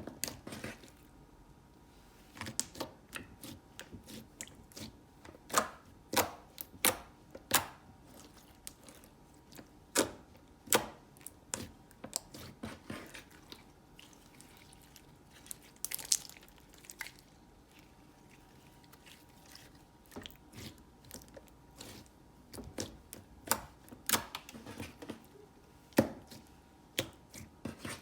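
Slime being poked, squeezed and stretched by hand, giving irregular sticky pops and clicks with short pauses between them.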